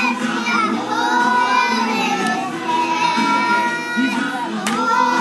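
A group of young children singing a song together, with sung notes held and gliding throughout.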